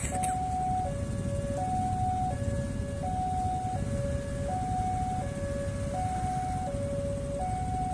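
A railway level-crossing warning alarm sounds its two-tone signal, a higher and a lower tone alternating about every three-quarters of a second, while the crossing is closed for a train. A passenger train passes behind it with a steady low rumble.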